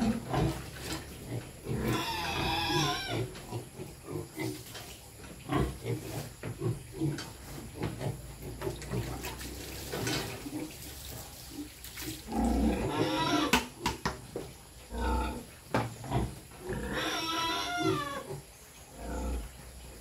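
Piglets squealing in their pen: three long, wavering squeals about two seconds in, around twelve and a half seconds in and at about seventeen seconds, with short lower calls and scattered knocks between them.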